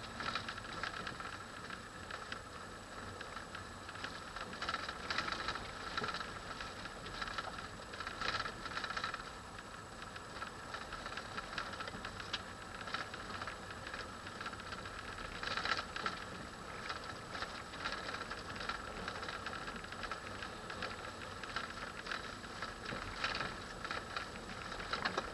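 A 4x4 heard from inside the cabin while driving on a rough dirt track: steady road noise with irregular bursts of rattling from the vehicle's body and fittings as it goes over the bumps.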